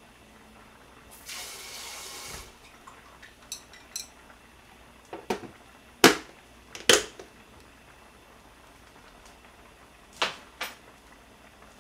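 Plastic food-storage container being closed and handled: a short hiss about a second in, then a series of sharp plastic clicks and knocks, the loudest two around the middle, as the snap-lock lid is clipped shut, and two more knocks near the end as it is put away.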